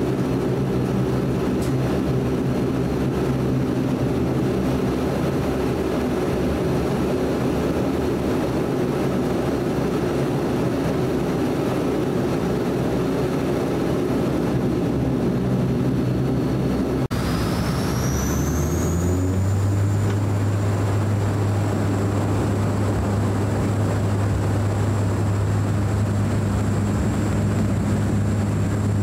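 Cabin sound of a De Havilland Canada Dash 8 Q400's Pratt & Whitney PW150A turboprops and propellers running steadily at low power. A little over halfway through, a high whine rises and levels off and a deep propeller drone swells and holds as the engines spool up to takeoff power.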